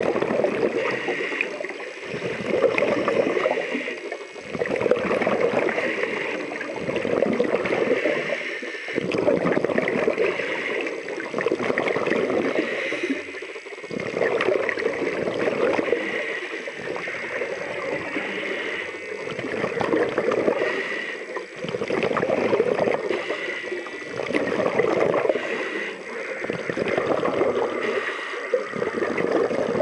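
Scuba diver breathing through a regulator underwater: a rush of exhaled bubbles and the hiss of each breath, swelling and fading in a steady rhythm about every two seconds.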